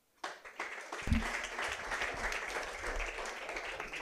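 Audience applauding: many hands clapping together. It starts a moment in, builds within about a second, holds steady, and begins to thin out near the end.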